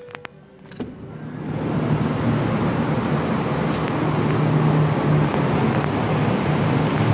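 A door's lever handle and latch click a few times, then a loud, steady machine hum with a rushing noise rises over about a second and holds.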